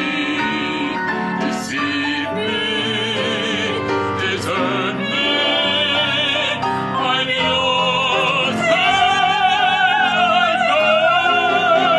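A soprano and a baritone singing in operatic style with wide vibrato, accompanied by grand piano. The voices swell into long held notes in the last few seconds.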